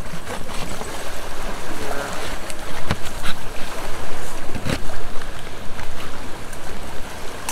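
Lake waves washing onto a pebble shore: a loud, surging rush of water.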